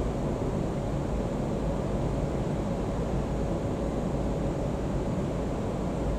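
Steady low rumble with a faint constant hum, unchanging throughout; no distinct event stands out.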